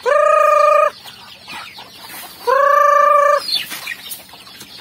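A chicken gives a loud call held at one steady pitch for about a second, twice, some two and a half seconds apart. Between the calls, quieter clucking comes from the flock of free-ranging chickens feeding on scattered palay.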